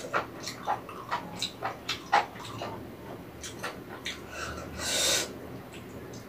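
Close-miked chewing of rabokki, ramen and rice cakes in broth: quick wet mouth clicks and smacks, thick for the first couple of seconds and then sparser. One louder airy sound comes about five seconds in.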